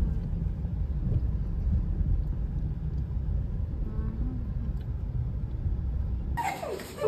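Low, steady road rumble inside a moving car's cabin, cutting off shortly before the end.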